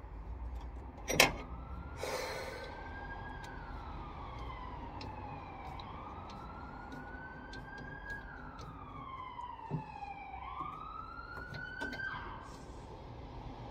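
Emergency vehicle siren wailing, its pitch sweeping slowly up and down over a few seconds per cycle. A sharp knock about a second in, from hand tools in the engine bay, is the loudest single sound.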